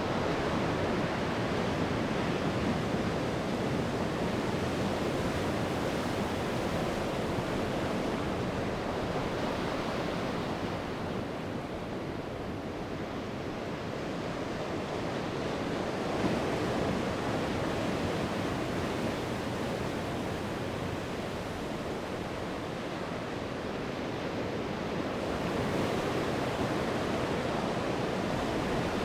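Sea waves breaking and washing on the shore, a continuous rushing surf that swells and eases slowly, with louder surges about a quarter of the way in, midway and near the end.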